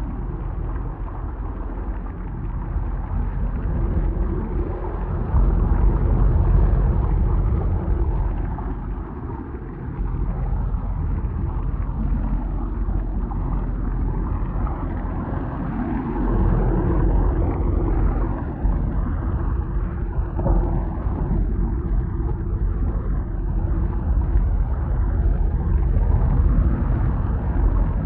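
Synthesized imitation of a thunderstorm: a continuous deep rumble that swells and falls. It grows louder about five seconds in, again around sixteen seconds, and near the end.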